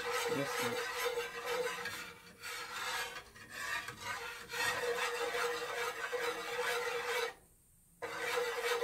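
Wire whisk scraping rapidly around a nonstick pan, stirring a flour-and-butter roux over low heat, with a couple of short pauses and a brief break near the end.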